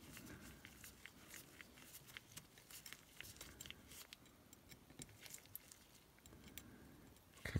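Near silence with faint, scattered small clicks and rustles of nitrile-gloved hands handling a thin wire and small machined metal saber-hilt parts.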